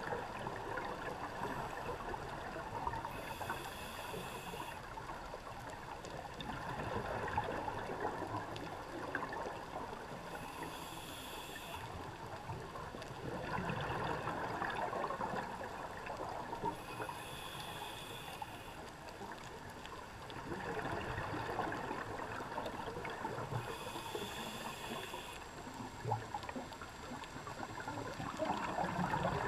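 Underwater scuba breathing through a regulator: four hissing inhales about seven seconds apart, each followed by a gurgling rush of exhaled bubbles.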